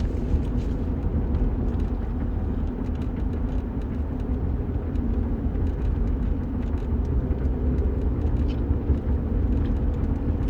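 Steady low rumble of a car in motion, road and engine noise with no sharp events.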